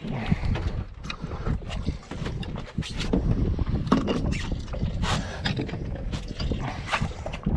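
Wind buffeting the microphone over water lapping against a fiberglass boat hull, with scattered knocks and clatter of gear and handling on the deck.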